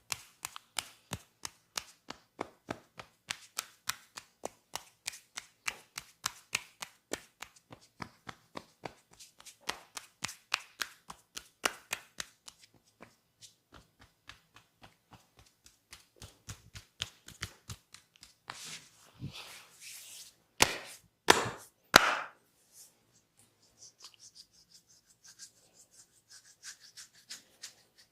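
A barber's hands striking the head in rapid chopping massage strokes, about three a second, then irregular. A few louder slaps come near the end, followed by faint rubbing of the scalp.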